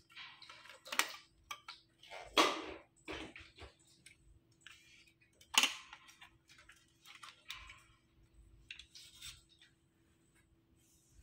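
Hard PP plastic parts of a fibre-optic dome closure clicking and knocking as the splice tray is handled and turned over, with the loudest knocks about a second, two and a half seconds and five and a half seconds in, and lighter rattles between.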